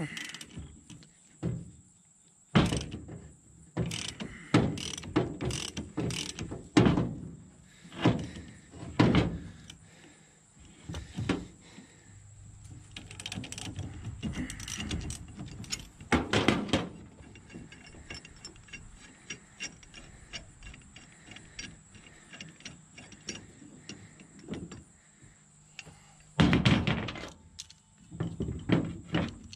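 A ratchet wrench turning the screw of a C-frame U-joint press to force U-joint caps out of a drive shaft yoke: runs of rapid ratchet clicking, with irregular metal clanks and knocks of tools and parts on the truck's steel tailgate, loudest about two and a half, sixteen and twenty-six seconds in.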